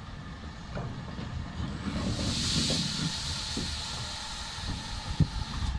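LMS Stanier Black 5 4-6-0 steam locomotive rolling slowly past tender-first, its wheels giving a low rumble. A rush of steam hiss swells about two seconds in and fades, and there is a single sharp clank near the end.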